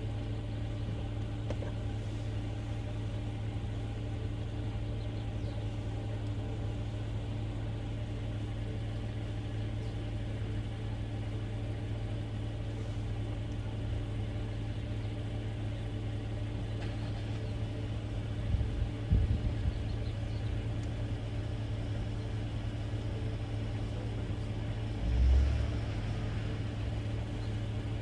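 Car engine idling with a steady low hum, with a few short low bumps about two-thirds of the way through and another near the end.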